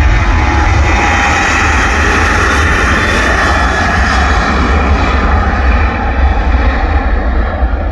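Departing twin-engine jet airliner at takeoff power passing close by: a loud, steady jet rush with a falling tone in the first second or so, its hiss thinning toward the end.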